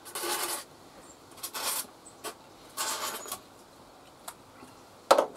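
A felt-tip marker pen drawn across rigid-foam pipe insulation in three short scratchy strokes, marking the cut lines, with a couple of light clicks. A brief, louder knock comes near the end.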